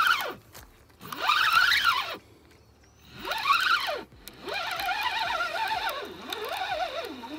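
Spinning reel whining as its handle is cranked in bursts to reel in a hooked, fighting catfish. Each burst rises and falls in pitch as the cranking speeds up and slows, with a short pause after the first.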